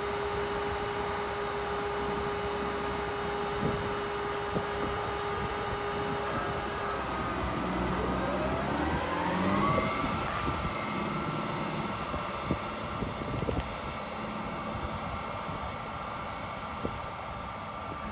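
New Holland T8 tractor's diesel engine running steadily, then revving up about seven seconds in as it pulls a ripper-bedder off through the field, holding a higher steady pitch and fading a little as it moves away. Heavy wind noise on the microphone runs underneath.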